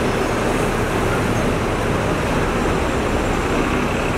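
Steady street traffic noise, with double-decker buses passing.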